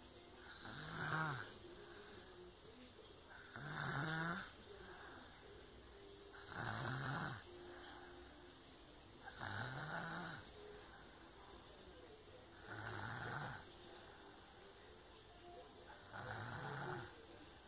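A child snoring heavily in sleep: six snores about three seconds apart, each on an in-breath lasting about a second, with a rasping pitch that rises and falls.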